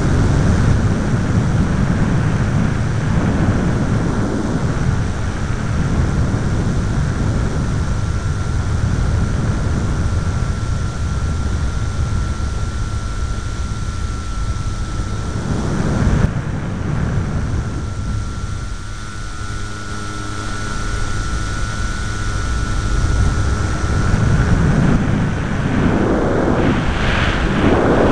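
Airflow rushing over the microphone of a small onboard camera on a balsa RC plane in flight, with the steady whine of the plane's motor and propeller running under it. The rushing swells in gusts about halfway through and again near the end.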